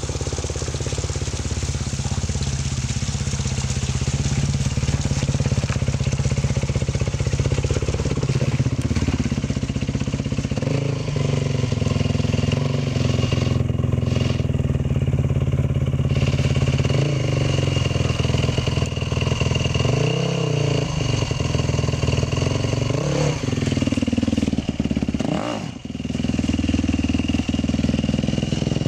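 Yamaha enduro motorcycle engine running at low revs, the throttle opened and eased over and over as the bike creeps down a steep slope. A little past three-quarters of the way through it revs sharply up and drops back.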